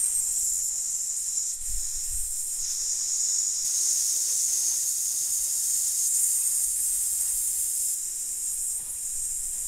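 A man holding a long, steady 'sss' into condenser microphones to test their sibilance, with no pop filter. The top end of the hiss grows brighter a little under four seconds in, where the recording switches from a Sterling Audio SP 150 to a Lauten Audio Atlantis FC-387 FET condenser microphone.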